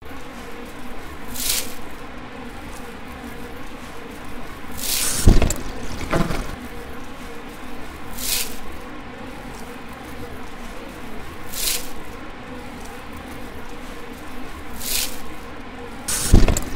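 Experimental soundscape: hissing swells that return about every three seconds over a low steady hum, with a loud thump about five seconds in and another near the end.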